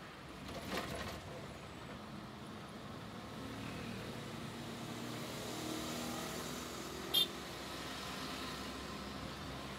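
City traffic heard from inside a moving vehicle: steady engine and road noise, with the engine note lifting slightly in the middle. About seven seconds in comes a single very short, high-pitched chirp, the loudest sound.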